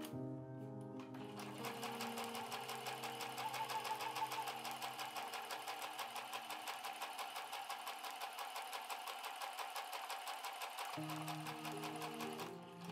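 Domestic sewing machine stitching around the edge of layered fabric and quilt batting: a rapid, even run of needle strokes that starts about a second in and stops near the end.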